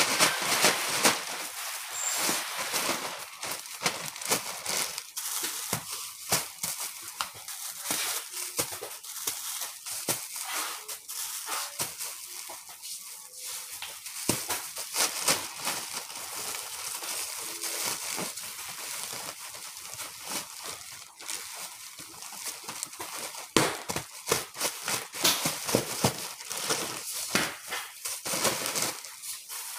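Clear plastic bag crinkling and rustling in dense, irregular crackles as clothes are handled and stuffed into it.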